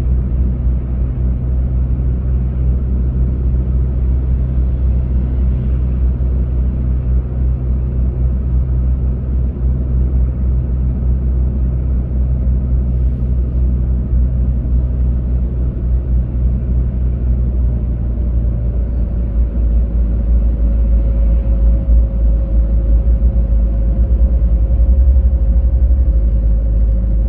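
Steady low rumble of a car driving through a road tunnel, heard from inside the cabin: engine and tyre noise.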